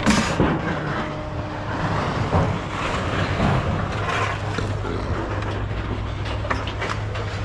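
A steady low engine hum with scattered knocks and clanks of scrap metal being handled, the loudest clank right at the start.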